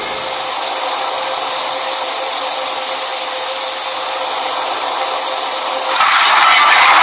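A steady whirring hiss with a faint steady hum in it, like a hair dryer or small motor. It changes abruptly about six seconds in to a louder, fuller noise.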